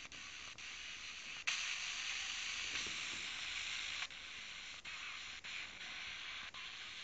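Steady FM radio static hiss from a Sony Ericsson phone's FM tuner between stations. Brief drop-outs break it several times as the tuner steps from frequency to frequency, and it gets a little louder about a second and a half in.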